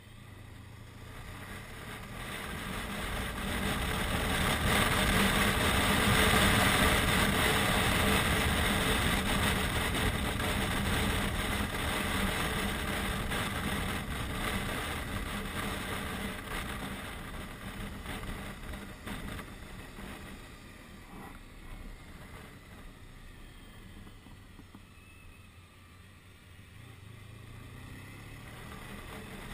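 Touring motorcycle running on the move, its engine under a rush of wind over the microphone. The sound swells to its loudest about six seconds in, then slowly dies down and picks up again near the end.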